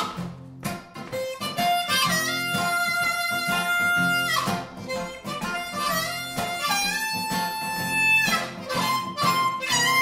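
Harmonica playing a melody in long held notes, one bending down about four seconds in, over strummed acoustic guitar and electric guitar.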